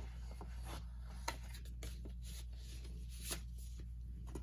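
Paper and card album contents being handled: rustling with scattered sharp clicks, the sharpest just over a second in, over a steady low hum.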